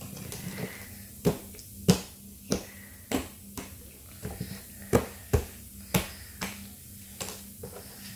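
Sticky slime clicking and popping as it is pressed, squeezed and pulled off a hard tabletop: about a dozen sharp clicks, roughly two a second, starting about a second in, over a faint steady low hum.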